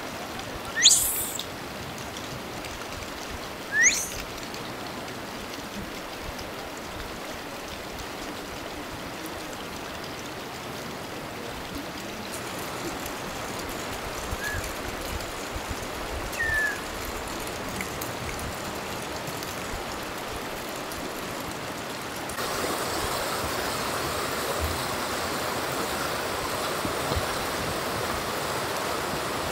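A mountain stream rushing steadily, with two short, high, rising bird chirps about one and four seconds in and a couple of fainter chirps midway. The water sound steps up louder about three quarters of the way through.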